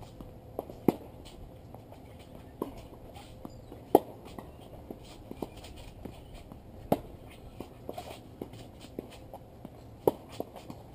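Tennis rally on a hard court: sharp pops of the ball being struck by rackets and bouncing, one every second or two, with the loudest hits about every three seconds. Shoes scuff on the court between the hits.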